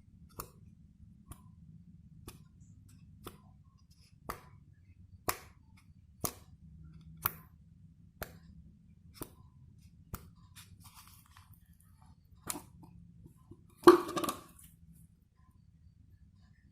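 Clock ticking, about one tick a second, over a faint low steady hum. Near the end a louder noise lasting about a second cuts across the ticking.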